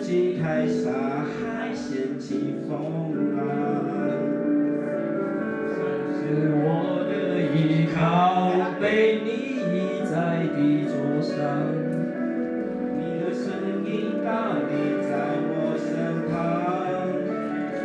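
Karaoke backing track playing, with a man singing Mandarin lyrics over it through a microphone.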